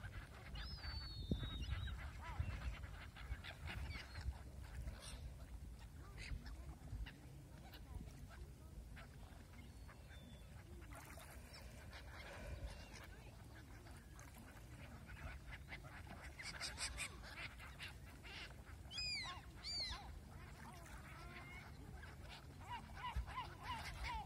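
A flock of gulls calling now and then, with a few loud calls about three-quarters of the way through and a quick run of short calls near the end, over a steady low rumble.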